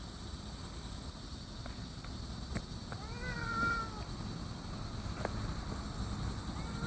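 A domestic cat meowing: one drawn-out meow, rising then falling slightly in pitch, about three seconds in, and another starting right at the end. A few faint taps sound against a steady background hiss.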